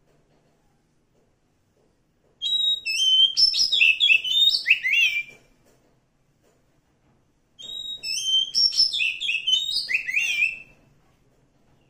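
Oriental magpie-robin singing: two phrases of about three seconds each, made of varied, rapidly changing whistled notes, with a pause of about two seconds between them.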